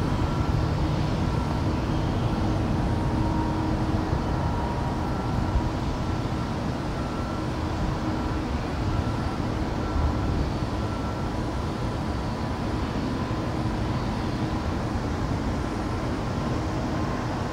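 Jet airliner engines at a distance: a steady low rumble with a faint high whine over it, easing off slightly.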